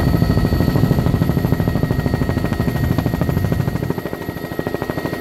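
Helicopter in flight heard on board: the rotor blades chop in a fast, even thudding beat over a steady high whine. The chopping eases briefly about four seconds in.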